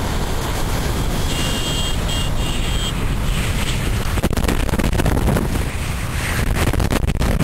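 Jet blast from an airliner's engines at takeoff thrust: a loud, steady rush of noise with heavy wind buffeting the microphone, which gusts harder in the second half.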